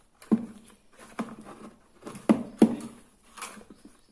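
Plastic casing of a rechargeable LED torch being handled: five knocks and clicks, the two loudest close together a little past the middle.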